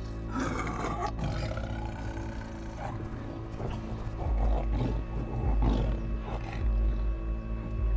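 Tiger roar about half a second in, falling in pitch, over a film score of sustained tones that deepens with a low rumble about halfway through.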